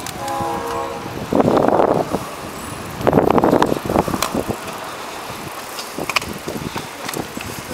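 Riding along on a bicycle among a group of cyclists: wind buffets the microphone in two loud gusts, with scattered clicks and rattles from the moving bike. A short steady pitched tone sounds in the first second.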